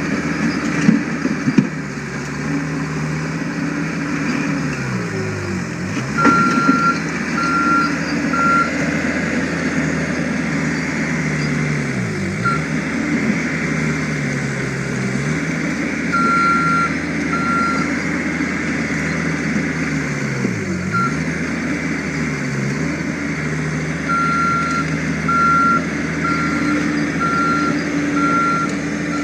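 John Deere 325 skid steer's diesel engine working hard, its pitch dropping as it lugs under load pushing into a pile of broken concrete and rock, then picking back up several times. Runs of steady high reversing-alarm beeps come in while it backs out, and there is a sharp knock about six seconds in.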